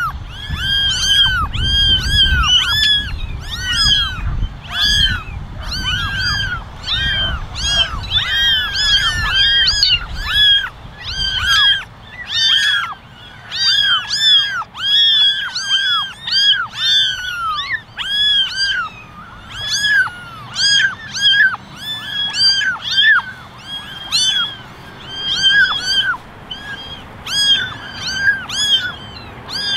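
A litter of young kittens meowing, many short, high, arched mews overlapping, several a second, without a break.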